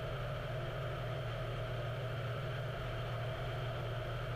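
Steady drone of a Cessna Skylane's piston engine and propeller in flight, heard through the cockpit intercom as a low hum with a hiss.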